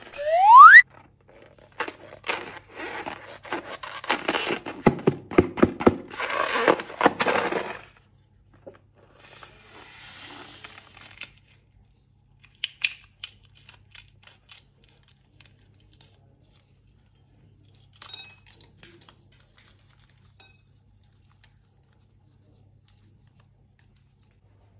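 A short, loud rising whistle right at the start. Then about eight seconds of crinkling and tearing with scattered clicks as slime-making materials are cut open and handled. After that come only a brief soft hiss and a few faint clicks.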